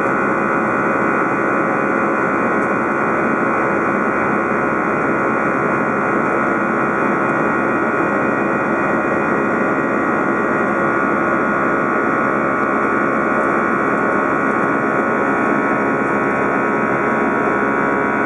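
Steady jet engine noise inside an Airbus A319 cabin during the climb after take-off: an even rush with several steady whining tones, unchanging throughout.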